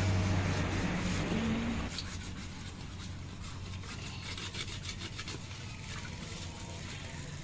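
A hand rubbing and scouring a soot-blackened metal cooking pot, a run of short rasping strokes. A low steady hum, loudest in the first two seconds, fades away about two seconds in.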